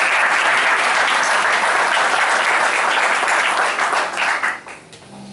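Audience applauding: steady, dense clapping that dies away about four and a half seconds in.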